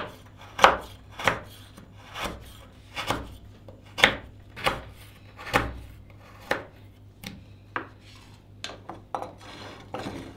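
Kitchen knife slicing a block of tamarind pulp on a wooden cutting board: a run of sharp chops, about one or two a second. Near the end there are softer scraping sounds as the cut tamarind is tipped off the board into a pan.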